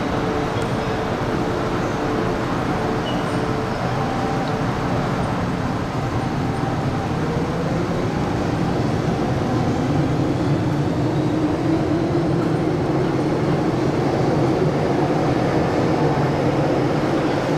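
Hong Kong MTR M-Train electric multiple unit running in an underground tunnel, with steady wheel-and-rail noise. From about six seconds in a motor whine rises in pitch and the sound grows a little louder as the train speeds up.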